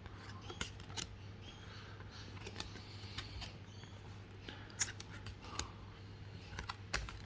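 Faint sliding and light clicks of Yu-Gi-Oh trading cards being handled and flipped through one by one, a few sharper ticks near the end, over a steady low hum.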